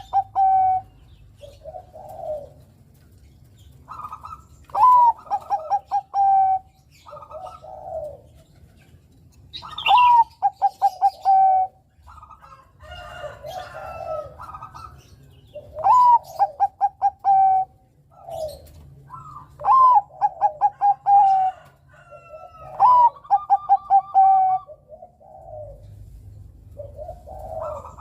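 Zebra dove (perkutut, Bangkok song type) cooing its song: five or so loud phrases every few seconds, each a rising opening note, a quick stuttering run of short notes, then a long held end note. Softer short coos come between the phrases.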